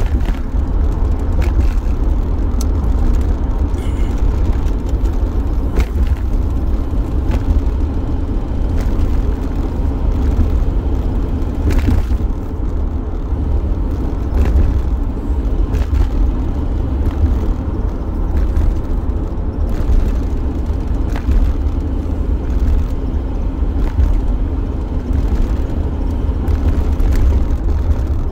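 Inside a van's cabin while driving: a steady low rumble of engine and road, with scattered light clicks and rattles.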